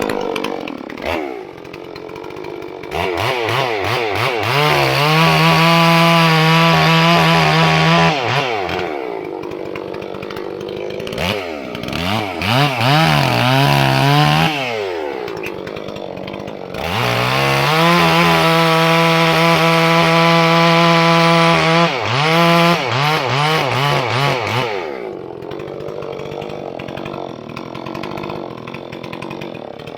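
Holzfforma G466 two-stroke chainsaw, a Stihl 046 clone, revved up and held steady at full throttle for several seconds twice, dropping back to idle in between, with a few quick throttle blips.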